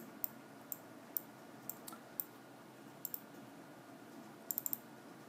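Sharp computer clicks from a mouse and keyboard. Single clicks come about every half second, then a quick run of about five clicks near the end, over a faint steady hum.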